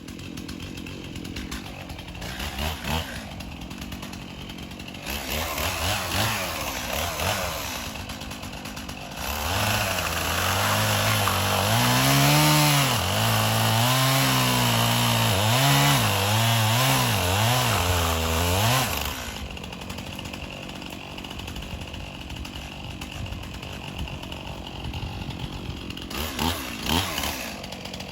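Gas chainsaw idling with a brief throttle blip, then running at full throttle from about nine seconds in, its pitch wavering under load as it cuts into a dead standing oak trunk. It drops back to a lower, steady speed about twenty seconds in, with a couple of quick revs near the end.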